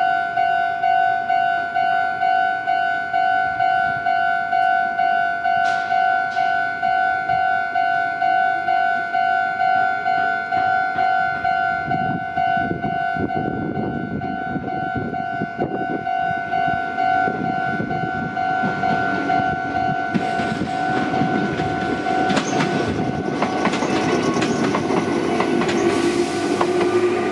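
Japanese level-crossing warning bell ringing in an even, repeating two-tone ding. From about twelve seconds in, a Meitetsu Mikawa Line train passes over the crossing with wheels clacking over the rail joints, and a rising motor whine comes in near the end.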